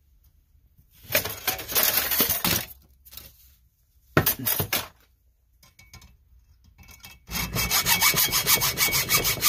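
Hacksaw cutting through the metal body of a carburetor fuel shut-off solenoid clamped in a bench vise. Two short bursts of strokes come in the first five seconds. From about seven seconds in the sawing runs as steady, fast back-and-forth strokes with a faint ringing whine.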